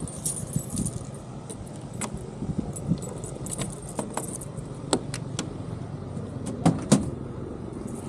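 A bunch of keys jangling and clicking in the hand, with a couple of sharp clacks close together near the end as the car's rear hatch is unlatched and swung open.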